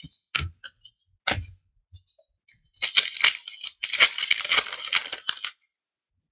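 A couple of light taps of cards set down on a tabletop stack, then a trading-card pack's wrapper being torn open and crinkled for about three seconds.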